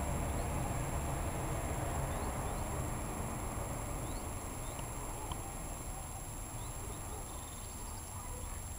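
Steady outdoor background noise, mostly a low rumble, with faint short high chirps scattered through the first half.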